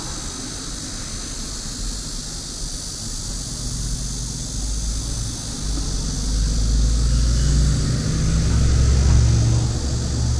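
A motor vehicle passing close on a street: a low engine rumble that swells over the second half, is loudest shortly before the end, then eases off, over a steady background hiss.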